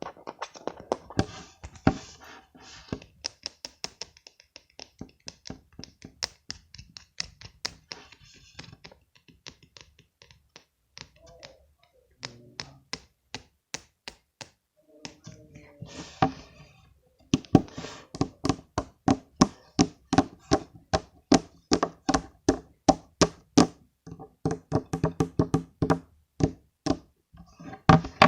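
Fingers tapping on a smartphone for ASMR: a run of sharp taps, scattered and pausing at first, then a steady quick series of about three taps a second from a little past halfway.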